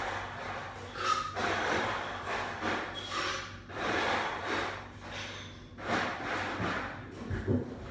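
A person breathing close to the microphone in slow, even breaths about every two and a half seconds, over a steady low hum, with a couple of low thumps near the end.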